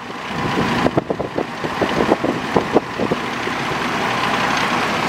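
Refrigerant hissing from a recharge can's hose into the A/C low-pressure port, with a run of crackling ticks at first, then a steady hiss, while the system is being charged.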